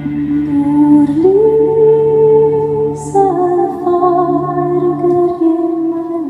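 Woman singing long, slow held notes over sustained electric guitar at a live concert. The melody climbs about a second in and steps down midway, and the low guitar part drops out near the end.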